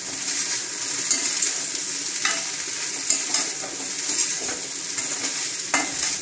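Chopped okra with grated coconut sizzling in a kadai while a spatula stirs and tosses it, with a few sharper scrapes of the spatula against the pan.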